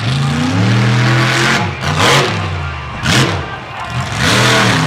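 Monster truck engine revving hard in repeated surges, its pitch climbing and dropping about three times.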